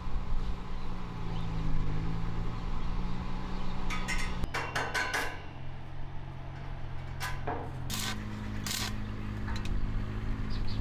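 Metal clinks and knocks as a steel pipe is handled and fitted against a metal roof frame: a quick cluster about four seconds in, then single knocks a few seconds later, over a steady low hum.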